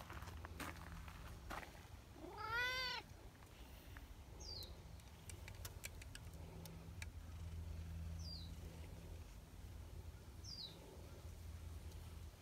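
A domestic cat gives one loud meow about two seconds in that rises and falls in pitch, then purrs steadily while being stroked on the head. A small bird calls a few short falling chirps in the background.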